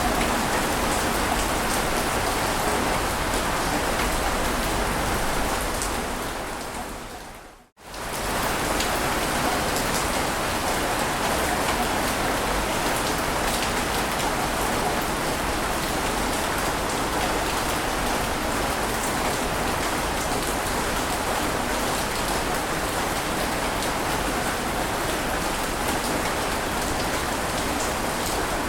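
Steady rushing water ambience, an even hiss with no distinct surges, that fades down to silence about eight seconds in and quickly comes back, like a loop or edit point in the track.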